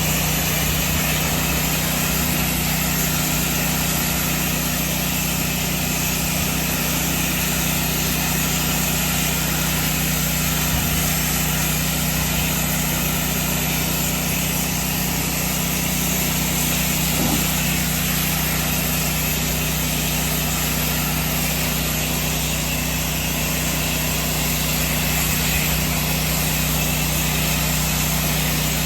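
Pressure washer's engine running steadily, with the steady hiss of the high-pressure water spray.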